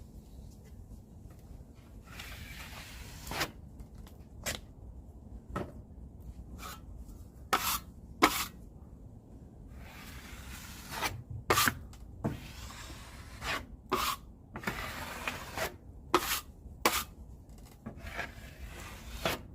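Drywall knife scraping joint compound over paper tape on a drywall seam, the first rough coat that beds the tape: a run of short, sharp strokes with a few longer wipes.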